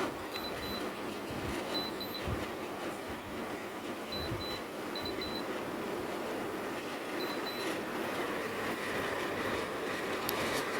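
LG T07NLA split air conditioner running, a steady rush of air from its indoor fan. Faint, short high-pitched beeps come in small groups of two or three several times, and a sharp click sounds near the end.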